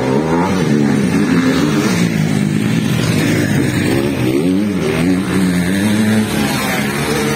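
Motocross bike engines revving hard and easing off, the pitch repeatedly rising and dropping.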